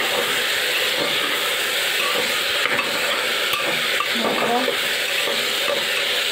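Mixed vegetables frying and sizzling in oil in an aluminium pressure cooker, stirred with a metal spatula that scrapes and clicks against the pot.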